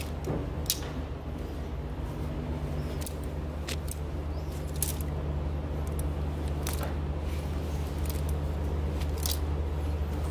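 Plastic clothes hangers clicking against a metal clothing rack as garments are pushed along and pulled out one at a time: a string of separate sharp clacks every second or so, over a steady low hum.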